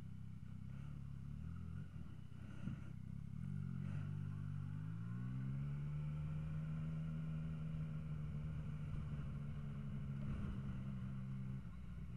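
Motorcycle engine idling, then pulling away about four seconds in with the revs rising and then holding steady. The pitch drops near the end.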